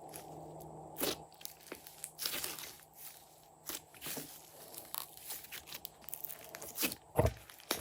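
Glossy slime being squished and mixed by hand, giving irregular crackling pops and clicks, with one louder thump about seven seconds in.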